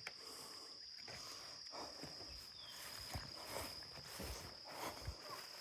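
Insects chirring in a steady high drone, with faint scattered rustles and soft knocks of handling.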